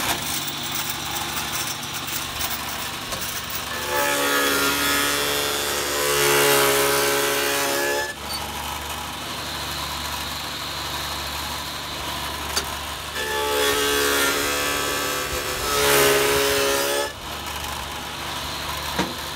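Table saw running, cutting handholds into the spruce hive box with the blade cutting across the wood: twice, for about four seconds each, the blade bites into the wood and the sound grows louder with a ringing note, then goes back to the steady run of the free-spinning blade.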